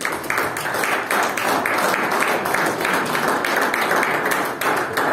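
Applause: many hands clapping in a dense, steady patter, tapering off near the end.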